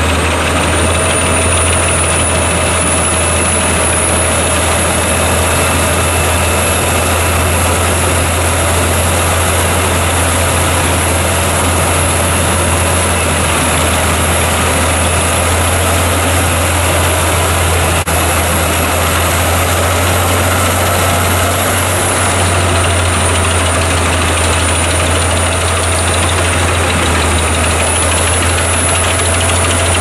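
Albach Diamant 850 hp wood chipper running under load while chipping logs and blowing the chips out of its spout. A loud steady noise with a thin high whine that dips slightly about two-thirds of the way through.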